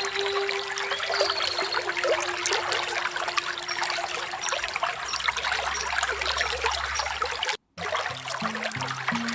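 Small waterfall trickling and splashing steadily, with a short bird chirp about a second in. The sound cuts out for an instant near the end, and low musical notes start over the water.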